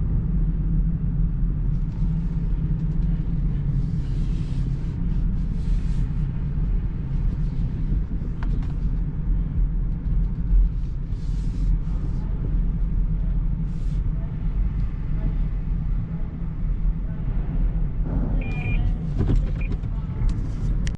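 Steady low rumble of a moving vehicle, with faint scattered hiss and light ticks above it.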